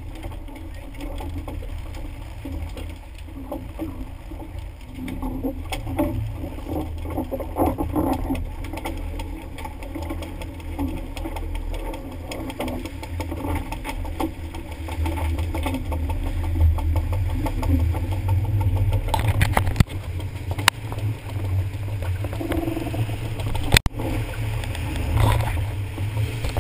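Small fishing boat under way at sea: a steady low rumble with water splashing against the hull, and a few sharp knocks about twenty seconds in.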